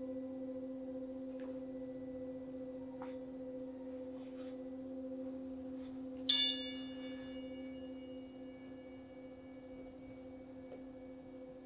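A large hand-held singing bowl rings with a steady low hum and an overtone above it, slowly fading. About six seconds in, a smaller metal bowl is struck once sharply and rings on with bright high tones that die away; a few faint taps come before the strike.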